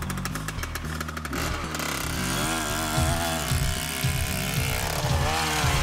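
Electronic soundtrack music with deep bass and a fast, steady beat; about two seconds in it changes to a wavering, buzzing lead line.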